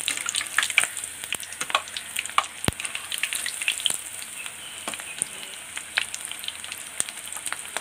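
Bondas of idli batter deep-frying in hot oil in a kadai: a steady sizzle with a dense, irregular crackle of sharp pops.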